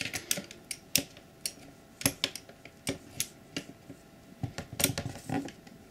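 A dozen or so light, irregular clicks and taps as a Mossberg 500 shotgun's trigger group is worked and pressed into its seat in the receiver.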